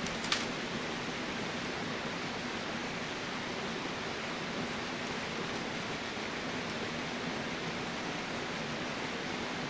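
Steady, even hiss with a faint low hum under it, and one short crackle about a third of a second in.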